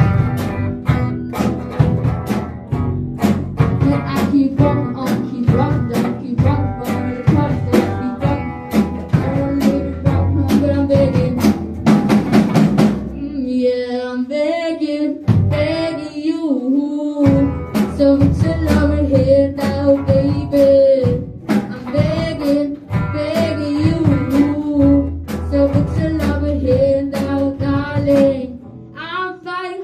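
A school rock band playing live: drum kit and electric guitars keeping a steady beat, with a sustained melody line over them. About halfway through, the drums and low end drop out for a couple of seconds, then the full band comes back in.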